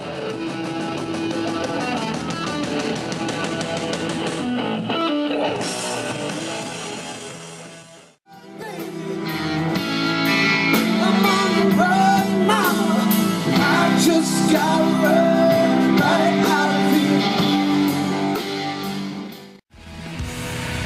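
Live rock band playing, with electric guitar, drums and a singer. The music cuts off abruptly about eight seconds in and again near the end, each time restarting with a different song.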